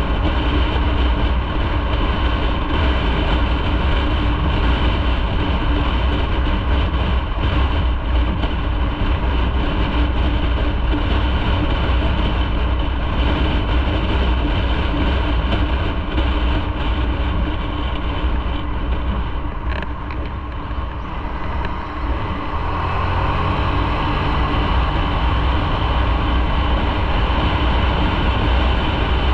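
Motorcycle running on the road, its engine note mixed with heavy low wind rumble on the microphone. The sound dips briefly about twenty seconds in, then the engine note rises again.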